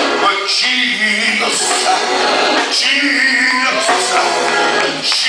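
Music with a man singing.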